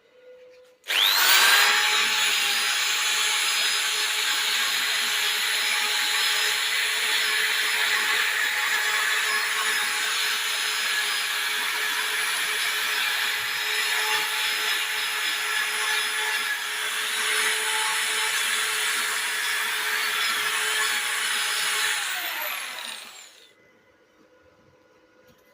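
Angle grinder spinning up with a rising whine about a second in, running steadily with a high whine over a loud hiss, then switched off near the end and winding down with a falling whine.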